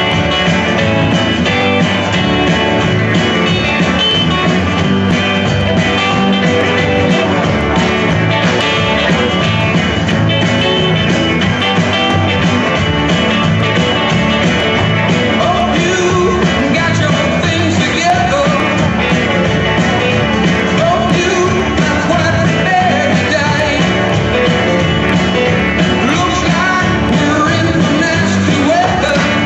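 Upbeat country line-dance music with guitar and a steady beat; a voice sings over it in the second half.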